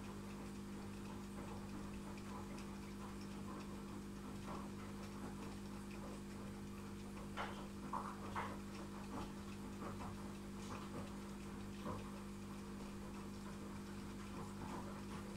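A steady low hum with scattered faint ticks and clicks, a few louder clicks bunched about seven and a half to eight and a half seconds in.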